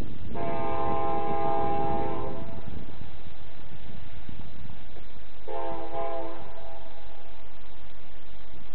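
Diesel locomotive air horn sounding a chord in two blasts: a long one of about two seconds right at the start, then a shorter one about five seconds later. Between and under the blasts is the steady rumble of the locomotives' diesel engines.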